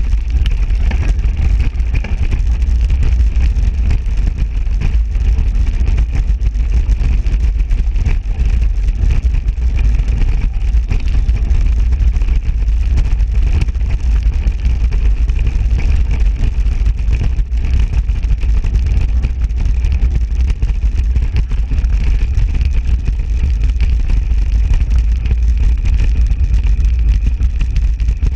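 Wind buffeting the microphone and tyre rumble from a mountain bike riding fast downhill on a dirt track: a loud, steady low rumble with a faint hiss above it.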